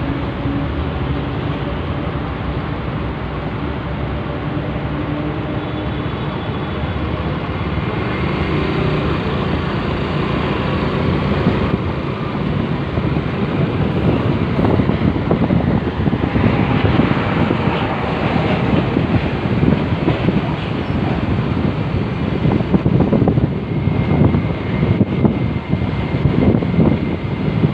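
Heavy diesel trucks running at idle, a steady low engine hum. From about halfway through, irregular wind rumble on the microphone grows louder over it.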